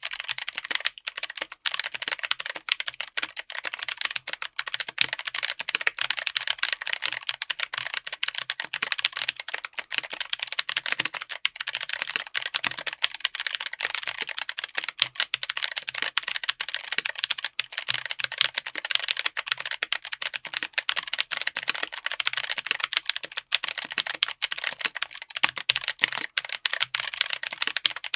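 Mechanical keyboard with Kailh BOX Autumn clicky switches, all-polycarbonate housings with a click bar, on an FR4 plate, typed on quickly and continuously: a dense run of sharp, crisp clicks.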